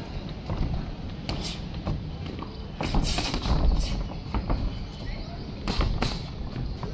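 Boxing gloves landing and feet scuffing the floor during a sparring bout: irregular sharp slaps and thuds, with a quick flurry of hits a little before the middle and another hard one near the end.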